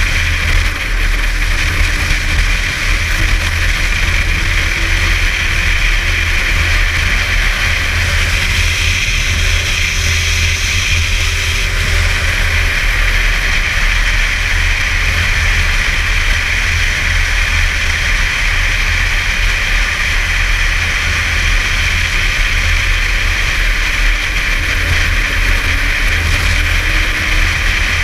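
Snowmobile engine running steadily at cruising speed, heard from the rider's seat, its pitch drifting slightly up and down, under a steady rush of wind and track noise.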